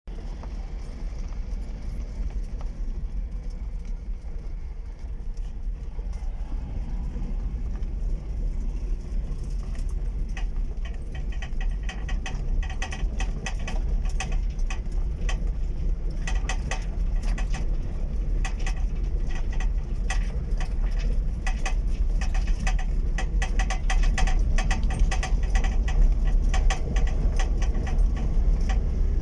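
An old Fiat Panda on the move: a steady low engine and road rumble with the car's clattering rattle, which grows dense from about ten seconds in as the rumble slowly gets louder.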